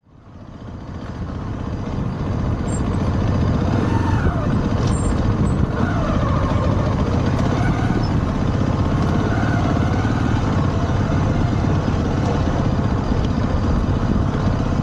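Zontes T310 motorcycle on the move: its engine runs steadily under a dense low rumble of wind and road noise. The sound fades in over the first couple of seconds, and the engine pitch rises and falls a few times around the middle.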